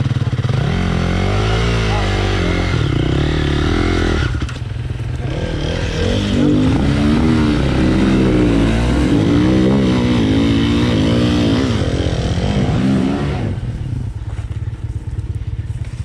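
Enduro motorcycle engine revved hard, its pitch rising and falling again and again, with a short let-off about four seconds in. Near the end it drops back to a quieter, steadier run.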